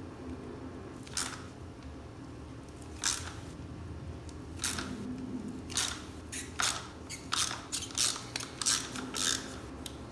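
Socket wrench ratcheting as an oil filter wrench is turned to crack the oil filter loose: short clicking strokes, sparse at first and coming about one or two a second in the second half.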